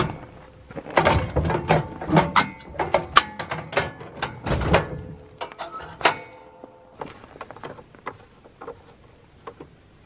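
A run of clunks, taps and clicks from hands working at the log splitter's small gas engine and a red plastic gas can, getting ready to refuel. The knocks thin out to a few faint clicks over the last three seconds.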